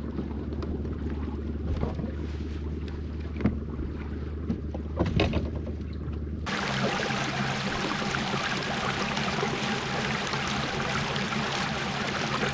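A steady low hum with a few short knocks, then, after an abrupt change about six seconds in, a steady rush of wind and water over a low motor drone.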